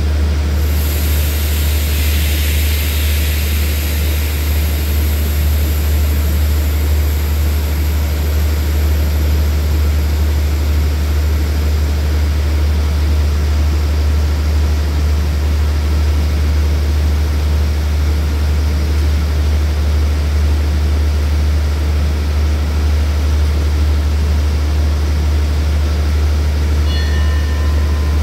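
Diesel express train standing at the platform with its engines idling: a steady, loud low hum. A high hiss, typical of air being let out of the brakes, starts at the outset and fades away over several seconds. Near the end come two short high pitched tones.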